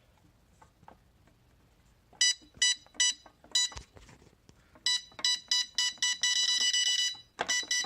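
Electronic safe's keypad beeper sounding a string of short, shrill beeps, then one long beep about six seconds in, and a few more short beeps near the end: the reassembled safe powered back up on fresh batteries and responding.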